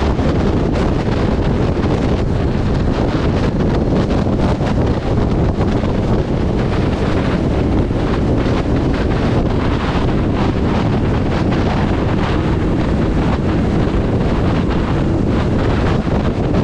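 Steady, loud wind rushing over the microphone of a motorcycle riding at highway speed, heaviest in the low range.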